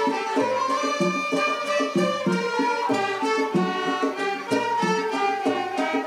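Taarab ensemble playing: plucked qanun notes and a violin melody over a steady beat.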